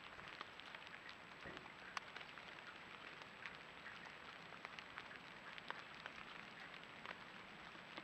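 Light rain pattering on fallen leaves: many faint, scattered ticks over a soft hiss.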